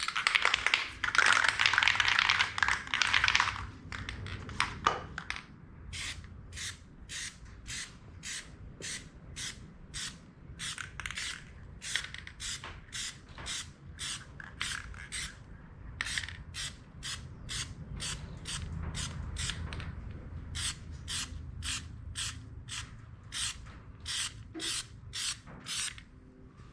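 Aerosol can of Plasti Dip glossifier spraying: one long hissing burst of about three and a half seconds, then a steady series of short hissing strokes, about two a second.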